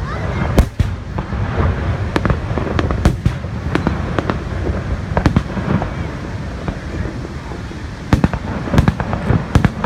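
Aerial fireworks going off: a string of sharp bangs and crackles at irregular intervals, coming thick and fast in the last two seconds, over a constant low rushing background.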